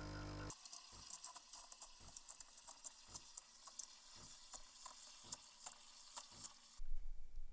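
Espresso machine's steam wand frothing milk in a stainless steel jug: a thin hiss with irregular crackling pops as air is drawn into the milk. Near the end a louder, deeper noise cuts in.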